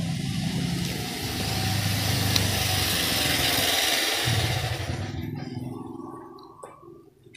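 A motor vehicle engine passing by, growing louder to a peak midway and then fading away over the last couple of seconds.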